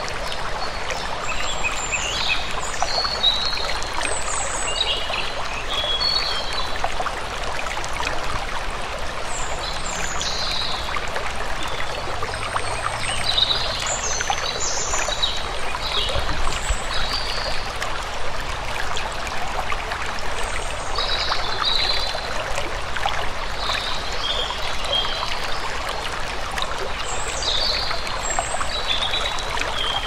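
A small stream babbling steadily, with birds giving short high chirps in scattered groups over it.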